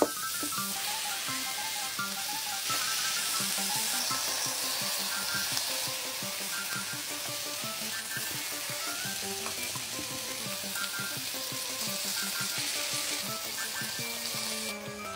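Food frying in hot oil, a steady dense sizzle that stops shortly before the end, with light background music playing over it.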